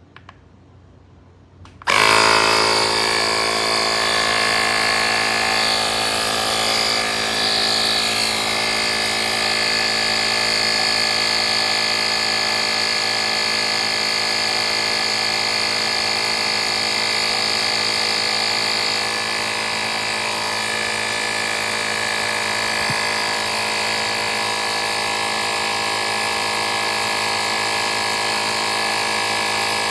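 Fanttik X8 APEX cordless tire inflator's compressor switching on abruptly about two seconds in and then running steadily with a buzzing drone.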